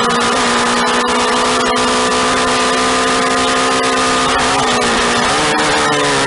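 Police motorcycle's engine running hard at speed, heard from the rider's camera with wind rushing over the microphone. The engine pitch holds steady, dips briefly about four and a half seconds in as the throttle eases for a turn, then climbs back.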